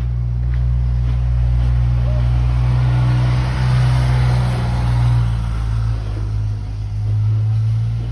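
Car engine and road noise heard from inside the moving car, a steady low drone, with a rush of noise that swells in the middle and then eases off.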